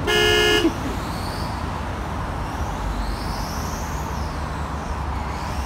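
A vehicle horn honks once, a steady held tone of about half a second, followed by the steady rumble of road traffic.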